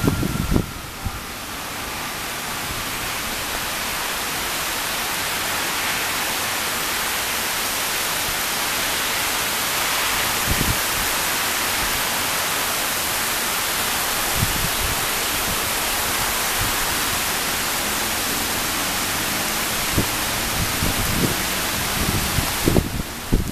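Torrential thunderstorm downpour, a steady loud hiss of heavy rain, with a few short low thumps scattered through it.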